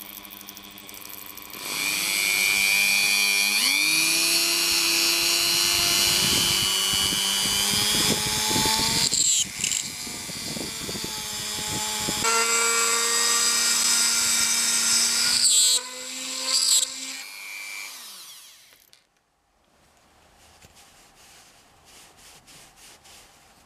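Hand-held high-speed rotary tool with a thin drill bit running and drilling a small hole into a wooden lure body, its whine shifting in pitch as the bit loads and frees. It stops about 16 s in, runs again briefly, then winds down and stops.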